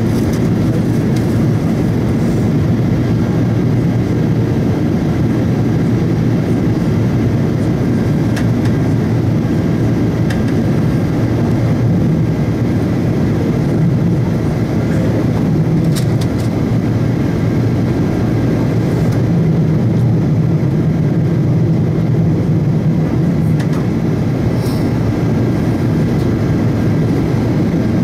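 Steady cabin noise of an Air France Boeing 777-200ER in descent: the low hum of its GE90 jet engines and the rush of air over the fuselage, heard from inside the cabin by the wing.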